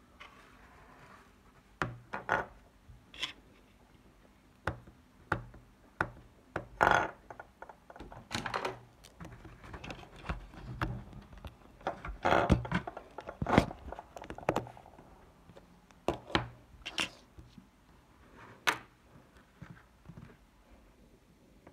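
Irregular plastic clicks, knocks and light scrapes as an LG KP500 mobile phone's battery is pried out and the handset handled.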